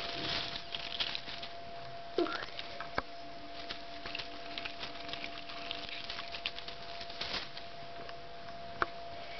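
A cat rustling and pawing among the needles of a Christmas tree: scattered light rustles and taps, with a couple of brief squeaks, over a faint steady hum.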